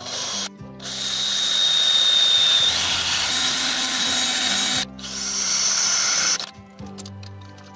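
Drill press boring down through metal plate, the bit cutting in long loud noisy spells that stop abruptly a few times, leaving only a low steady hum in the breaks. A brief high squeal rings out from the cut about two seconds in.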